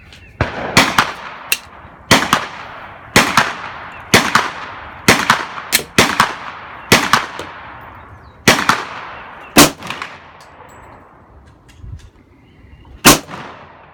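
Glock 22 .40 S&W pistol fired in a string of single shots, roughly one a second, each with an echoing tail; after a pause of a few seconds, one last shot near the end.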